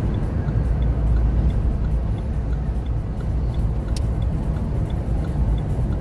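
Steady low rumble of road and engine noise inside a moving car's cabin while driving at speed. A single short click about four seconds in.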